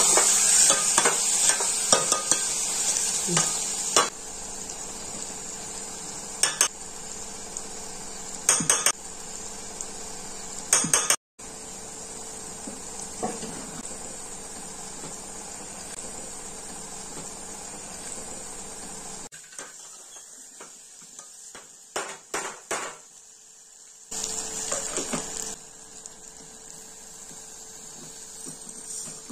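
Vegetables sizzling in oil in a metal pot while a metal spatula stirs and scrapes against the pot, with sharp clinks of metal on metal. The sizzle and scraping are loudest at first, then settle to a quieter sizzle broken by occasional clinks.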